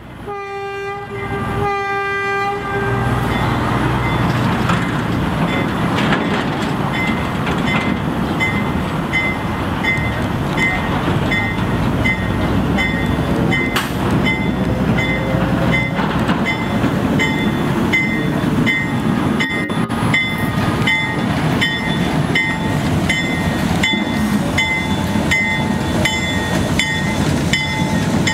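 Small diesel switcher locomotive (a GE 45-ton) sounding two short horn blasts at the start, then its engine running steadily as it pulls a work train over a street crossing, with wheels rumbling on the rails and a bell ringing about once a second throughout.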